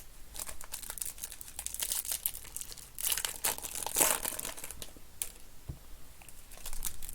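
Topps Chrome baseball card pack wrappers crinkling and tearing as the packs are ripped open by hand, in a run of short, irregular crackles with a couple of denser bursts.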